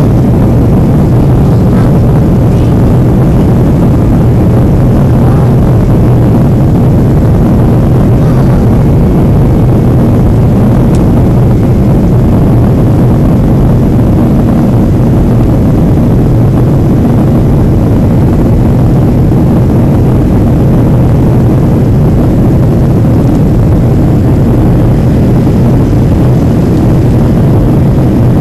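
Boeing 737-500's CFM56-3 jet engines and the airflow past the fuselage, heard inside the passenger cabin during the climb after take-off. It is a loud, steady low rumble with a constant hum under it.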